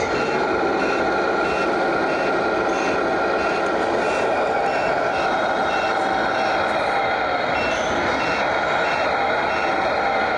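Reversing beeper on a radio-controlled model truck's sound module, beeping about twice a second with a pause of a couple of seconds midway, over a steady loud hall din.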